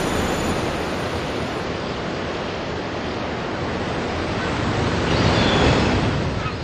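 Ocean surf: a steady rush of breaking waves that swells about five seconds in and then fades away.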